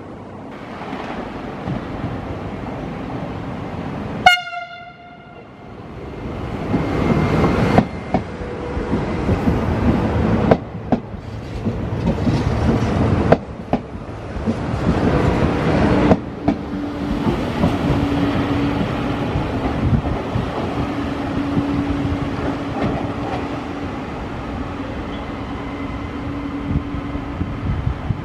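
Trenitalia regional electric train arriving: a short horn blast about four seconds in, then loud wheel and rail rumble as the train passes close. After that comes a steadier running noise with a low steady hum.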